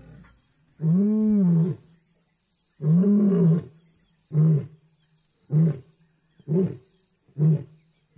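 Lion roaring: two long, deep, moaning roars, then a run of shorter grunting roars about one a second that come shorter and quicker.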